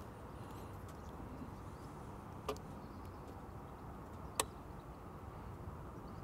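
Two short, sharp clicks about two seconds apart, the second louder, from handling a capacitor jump starter and pressing its ON/OFF button, over a faint steady low background rumble.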